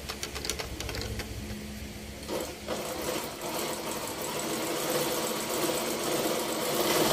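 Janome N3000 electric sewing machine running, sewing a close zigzag stitch through fabric. It runs more softly at first, then louder and steadier from about two and a half seconds in.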